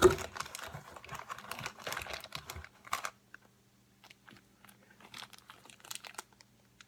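A knock at the start, then a clear plastic bag crinkling and crackling as it is handled, busiest in the first three seconds, with a few scattered small clicks after.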